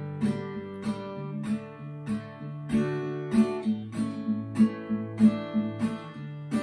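Cort acoustic guitar playing a song's melody as chords: a steady rhythm of struck chords ringing over a bass line that changes every second or so.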